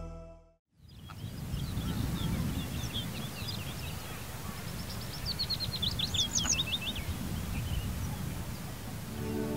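Several small birds calling with many short, high chirps and a quick trill of rising and falling notes about six seconds in, over a low, steady wind rumble. Music fades out in the first second and comes back at the very end.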